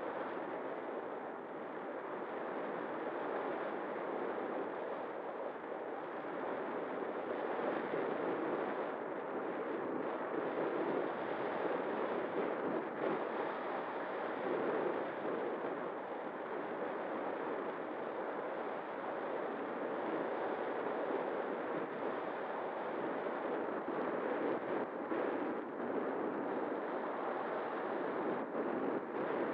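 Steady rushing airflow over the onboard camera microphone of an XK A1200 RC glider in flight, with a faint steady tone underneath.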